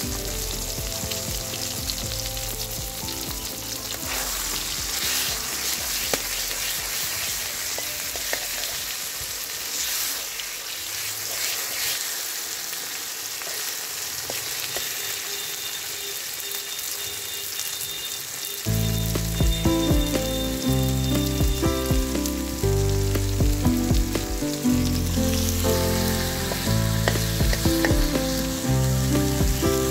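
Climbing perch and spice paste frying in hot oil in a metal wok, sizzling steadily, with a metal spatula stirring and scraping the pan. Background music with a bass line comes in louder about two-thirds of the way through.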